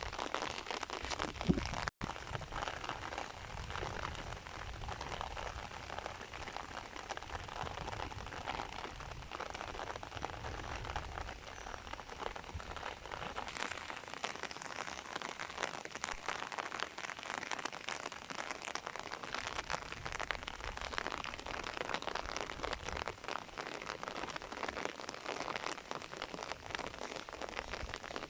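Steady rain falling, a dense patter of drops hissing on the ground and surfaces around. There is a brief cut-out about two seconds in.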